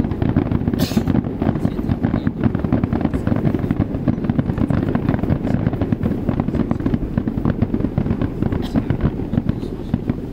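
Aerial fireworks display: a dense, unbroken stream of rapid bangs and crackles, with a few sharper cracks about a second in and near the end.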